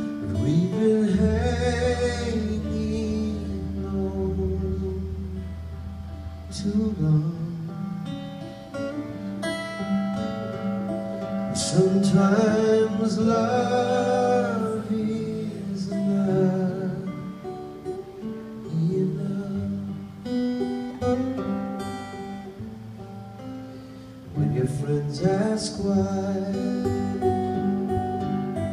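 Live acoustic-guitar music: an acoustic guitar strummed steadily, with a wavering melody line carried above it.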